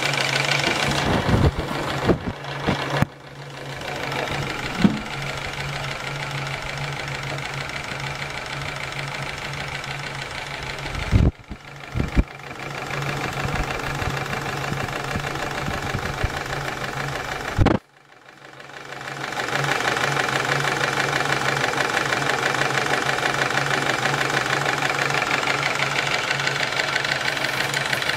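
Small homemade brass twin-cylinder, double-acting steam engine running fast on live steam, with a rapid, even pulsing chuff and clatter as it drives a small DC motor as a generator. A few sharp knocks come near the middle. Near the two-thirds point the sound drops out suddenly, then swells back up over a couple of seconds and runs louder.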